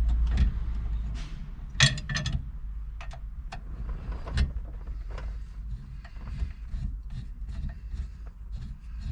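Small metal clicks and taps as steering-wheel bolts are lined up and started by hand with a 3mm T-handle hex key, with a sharper clink about two seconds in.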